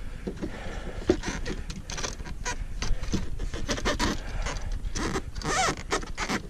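Irregular clicks and knocks of fishing gear being handled on a plastic kayak deck, as a rod-holder mount is adjusted and a rod is set in its holder. A brief rising squeak comes near the end.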